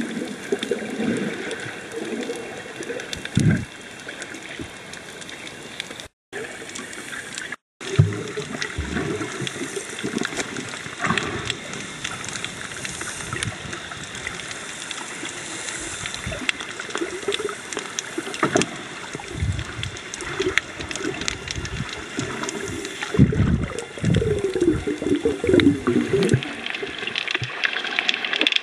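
Muffled underwater water noise picked up by a submerged camera: sloshing and bubbly gurgles with a scatter of faint clicks. The sound cuts out completely twice, briefly, about six and seven and a half seconds in.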